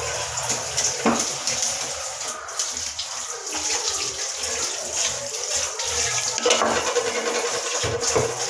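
Tap water running steadily into a kitchen sink while a rolling pin is washed by hand under it, with a short knock about a second in.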